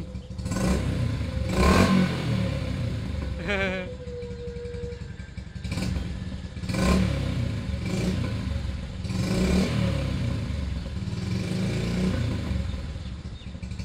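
Yamaha Byson's air-cooled single-cylinder engine breathing through an aftermarket Yoshimura exhaust, idling and revved up in repeated throttle blips, the loudest about two seconds in.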